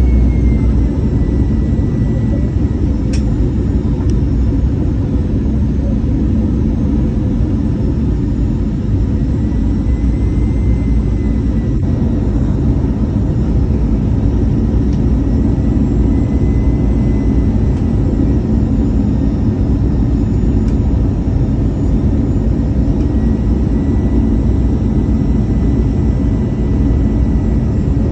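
Airbus A320 on approach, heard from inside the cabin: a steady loud roar of the jet engines and airflow, with a thin high whine that drifts slightly up and down in pitch. One sharp click about three seconds in.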